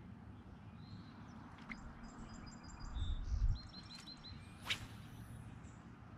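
Songbirds chirping: two quick runs of short, high repeated notes, one just after two seconds in and a lower one just before four seconds. A brief low rumble comes around the middle, and a single sharp swish about three quarters of the way through.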